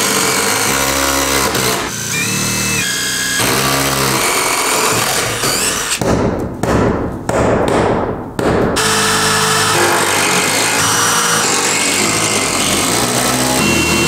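Cordless drill driving 3-inch, 5/16-inch structural screws into a wooden floor joist. The motor's pitch steps up and down as the trigger is worked, with a harsher, noisier stretch from about six to nine seconds in as the screw bites.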